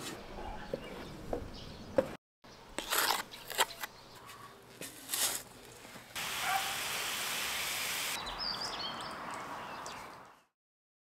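Garden sounds from short cut-together clips: scattered knocks and rustling, then a steady hiss-like scraping for about two seconds, then quieter outdoor ambience with faint chirps that fades out near the end.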